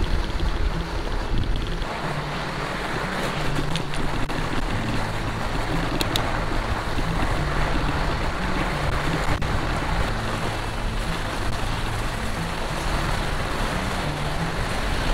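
Steady rush of wind on the microphone, mixed with a fat bike's tyres rolling over packed snow while riding downhill.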